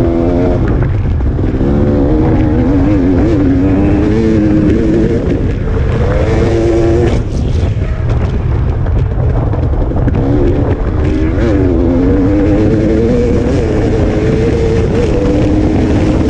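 Off-road motorcycle engine running hard at speed, its pitch rising and falling with the throttle, over a heavy low rumble.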